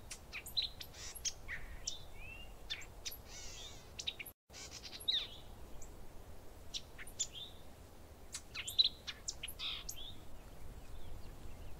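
Birdsong sound effect: many short chirps and sweeping whistles from songbirds, broken by a brief silent gap about four and a half seconds in.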